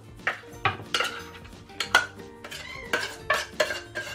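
Metal spoon scraping and clinking against the inside of an opened tuna tin and the rim of a plastic bowl while the drained tuna is scooped out, a quick irregular series of about a dozen sharp scrapes and taps.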